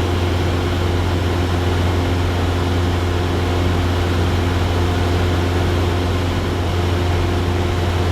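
Cessna 172 Skyhawk's piston engine and propeller droning steadily in level cruise, a constant low hum with a few steady higher tones.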